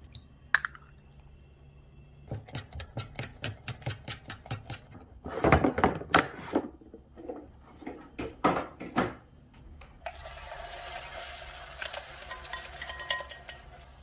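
Chopsticks clicking and clattering against a stainless steel cup in a quick, uneven rhythm, with a louder burst of clatter about five seconds in. About ten seconds in this gives way to a steady hiss.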